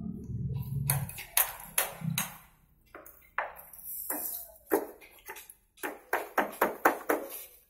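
Sharp, slightly ringing taps and clicks of hand tools working on a bamboo frame, coming quicker near the end at about three a second.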